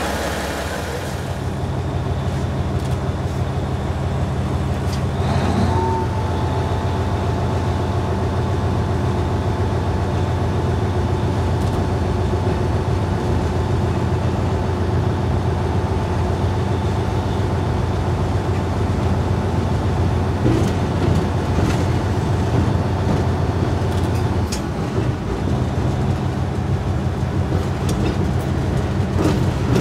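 Diesel engine of a 401Da shunting locomotive running steadily under load, heard from inside its cab as it pulls the train along, with a faint steady whine over the low drone. The engine note dips briefly about 25 seconds in, then picks up again.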